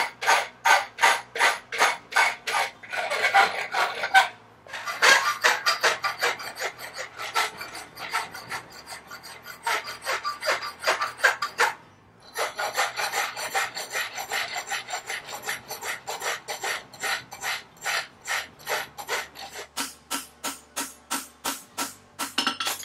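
A hand file scraping along the edge of an aluminum horseshoe in quick repeated strokes, about two to three a second, with short pauses about four seconds in and again near the middle. The filing is the dressing of the shoe's edges at the finishing stage.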